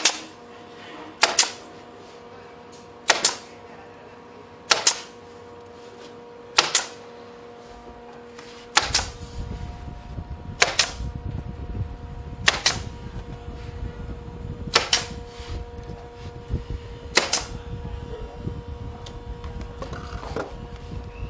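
A series of sharp knocks, one about every two seconds, over a steady hum; a low rumble joins about nine seconds in.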